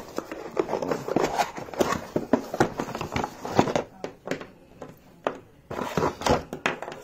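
Black charging cables and plastic accessories being handled and pulled out: a quick, irregular run of rustling, clicks and light knocks.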